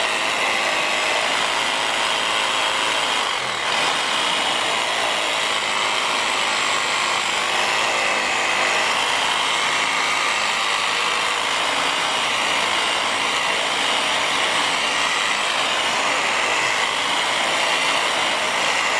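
Corded electric reciprocating hand saw running steadily with its blade cutting into a tree branch. It is fed with light pressure, so it cuts very slowly.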